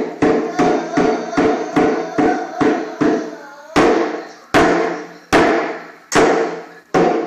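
Octagonal frame hand drum lying flat and beaten with a stick, each strike ringing briefly. Steady quick beats, about two and a half a second, then after a short pause five louder, slower strikes a little under a second apart.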